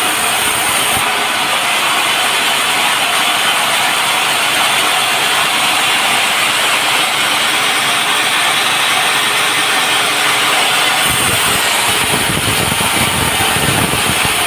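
Sawmill running at the teak log, a loud steady mechanical noise with a hiss on top; a deeper rumble joins about eleven seconds in.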